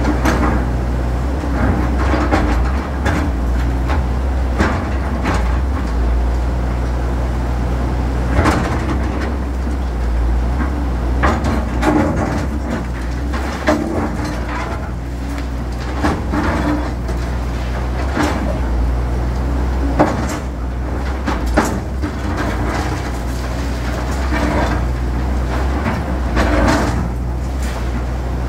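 Hyundai crawler excavator's diesel engine running steadily while its arm tears into a house, with irregular cracks and crashes of splintering timber and falling debris throughout.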